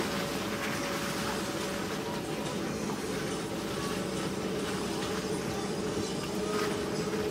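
Car engine running steadily under load with a constant rattle and jolting of the body as the vehicle drives over a rutted dirt track, heard from inside the cabin.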